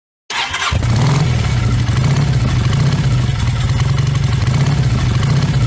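Motorcycle engine running at a steady speed, a low, quickly pulsing rumble that starts suddenly just after the opening.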